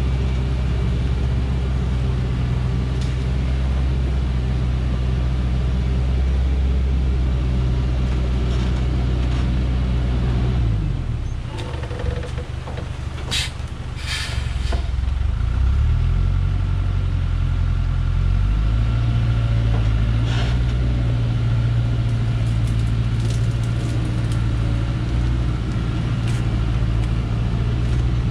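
Diesel engine of a Dongfeng logging truck loaded with acacia logs, labouring steadily up a steep rocky dirt track. About eleven seconds in the engine note drops and quietens for a few seconds, with a couple of short sharp sounds, then picks back up and runs steadily at a higher pitch.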